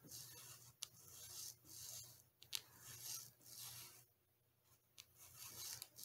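Faint rasping strokes of sandpaper drawn back and forth in a guitar nut slot to lower it, about one stroke a second, with a short pause about two-thirds of the way through.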